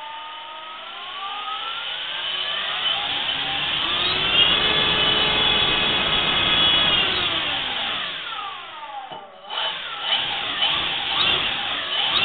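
Electric brushless motor of a Nitroplanes Airfield P-51 RC plane, driven by an Exceed RC 60 A ESC, spinning its propeller on a test stand with a rising and falling whine. The throttle goes smoothly up over about four seconds, holds, eases down almost to a stop about nine seconds in, then quickly goes back up. The run-up is smooth, with none of the stutter at low throttle that the stock 45 A ESC gave.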